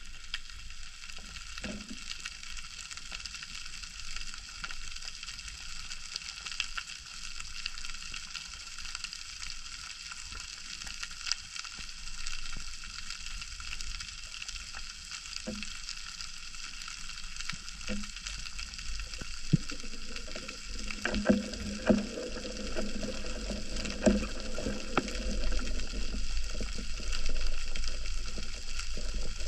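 Underwater crackle from snapping shrimp, a steady dense sizzle of fine clicks. A few low knocks and a low hum come in about two-thirds of the way through.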